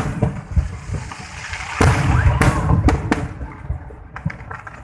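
Aerial firework shells bursting: a sharp bang at the start, a cluster of booms about two seconds in with rumbling between, then lighter crackling near the end.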